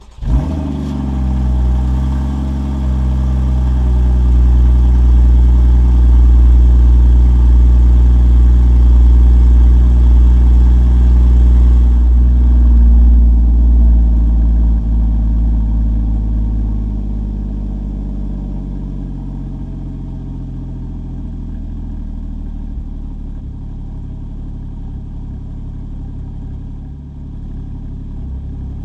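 Porsche engine, heard at its sport exhaust with the PSE valves closed, catches right at the start with a brief flare and settles into a steady idle. About fifteen to twenty seconds in, the idle drops lower in pitch and loudness and runs on steadily.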